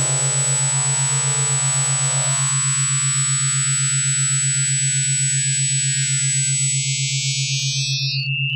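Synthesized electronic tones: a low buzzing tone pulsing rapidly throughout, under a dense cluster of high tones that gradually thins and narrows into a single high tone near the end, with rising sweeps in the first couple of seconds.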